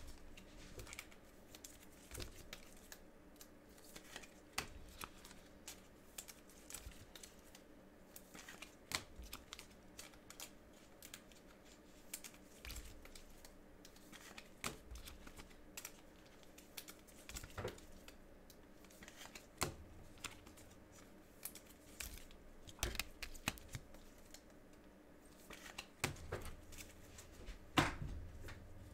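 Scattered light clicks, taps and rustles of hands working at a desk, with a few louder knocks and a faint steady hum underneath.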